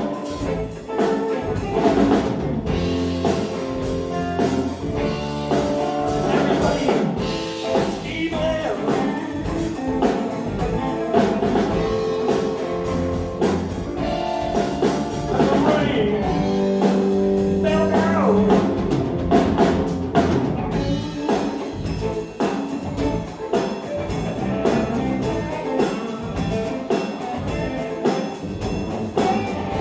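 Live rock band playing an instrumental passage on two electric guitars, electric bass and drum kit, with a lead line of held and bending notes.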